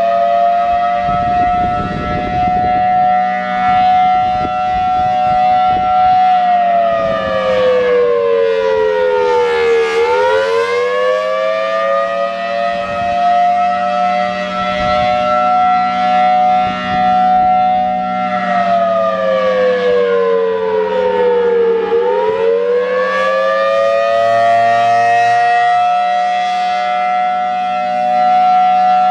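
Federal Signal Thunderbolt 1003 outdoor warning siren sounding loudly on its Attack signal. Its steady chord of tones twice slides down in pitch and climbs back up, the drops coming about twelve seconds apart, over a steady low hum.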